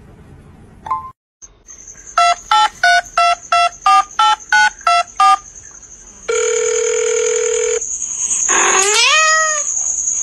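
Telephone keypad tones: about ten dialled digits, roughly three a second, then a steady ringing tone for about a second and a half, then a short rising cry near the end, with a thin high whine underneath.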